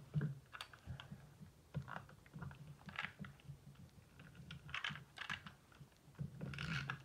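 Faint clicks and taps of card handling, with a few short rasping runs of a Snail tape-runner adhesive being rolled along a paper strip.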